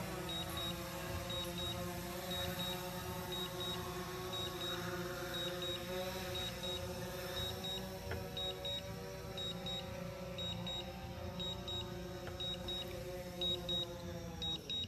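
DJI Phantom 4 Pro quadcopter's propellers humming steadily as it descends to land, the hum dropping away near the end as it touches down and the motors stop. A high double beep repeats about once a second throughout.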